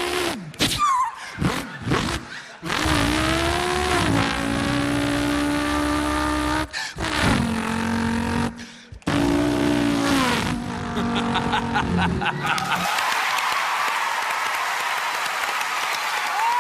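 A man imitating a car engine with his mouth: engine pitch climbing, holding and dropping in steps as if shifting gears, broken by short pauses. About thirteen seconds in, the imitation stops and an audience applauds.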